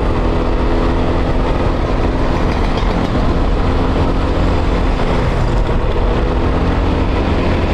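Honda Vario scooter cruising at a steady speed: its single-cylinder engine drones evenly under a heavy rumble of wind on the helmet-mounted camera's microphone.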